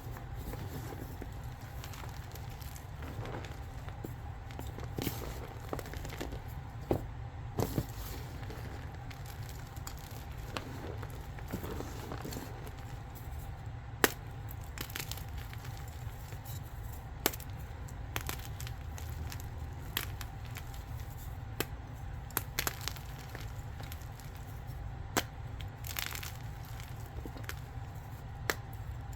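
Gym chalk being crushed, with scattered sharp cracks and crunches as it breaks up. The loudest crack comes about halfway through. A steady low hum runs underneath.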